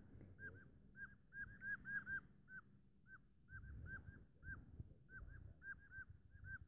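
A bird calling over and over in short, clipped notes that rise and fall, two or three a second and sometimes in quick pairs, loudest about two seconds in, over a low rumble.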